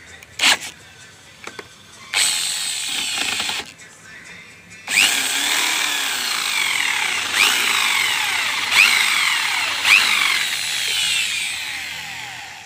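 Corded electric drill boring out the mirror-mount thread in a Honda Activa scooter's handlebar: a brief blip just after the start, a short run about two seconds in, then a longer run from about five seconds that fades near the end, with repeated high falling squeals.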